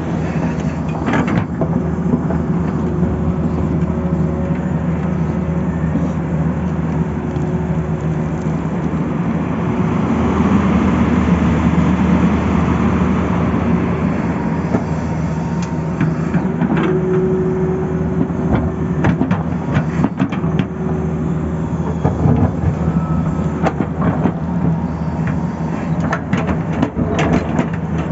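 Tata Hitachi excavator's diesel engine running steadily under digging load, louder for a few seconds near the middle. Scattered knocks and scrapes of the bucket against earth and stones come in the second half.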